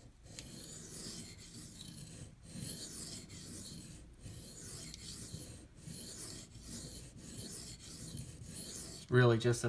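Steel knife edge stroked along a wet Venev bonded diamond sharpening stone under very light pressure, little more than enough to keep the blade on the stone: a steady run of soft rasping, scraping strokes with short breaks between them.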